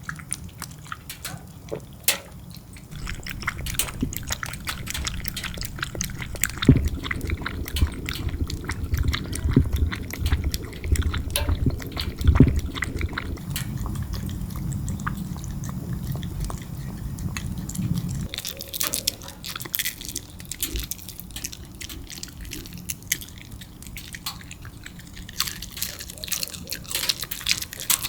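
Dog crunching dry dog cereal, with many irregular sharp clicks and crunches. A low steady rumble sits under it from a few seconds in until about two-thirds of the way through.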